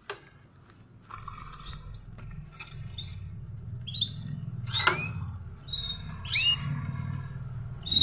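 Caged canaries giving short, rising chirps, scattered singly through the seconds, over a low steady rumble.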